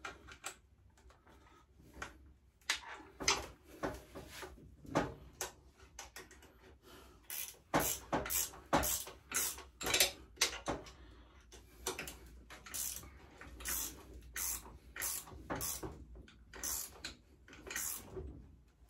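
Ratchet spanner tightening a bolt: a series of short metallic clicks, scattered at first, then coming in regular strokes, a little under two a second, from about eight seconds in.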